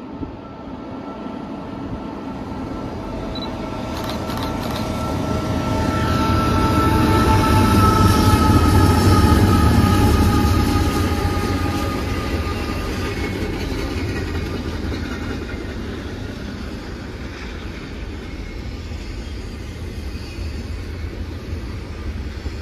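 A diesel train passes: the locomotives' rumble builds to a peak about eight to ten seconds in and fades, with an engine whine that drops slightly in pitch as they go by. The train's cars then keep rolling steadily past.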